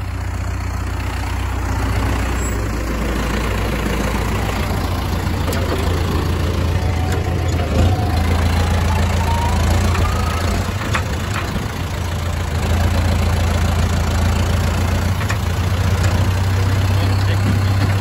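John Deere utility tractor's diesel engine running steadily, heard close up from aboard the tractor as it carries a round bale on its front loader.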